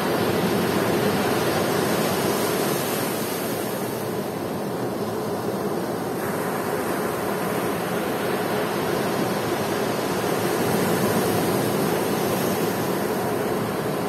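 Ocean surf breaking on a sandy beach: a steady rush of waves, swelling slightly as a wave crashes about a second in and again near the end.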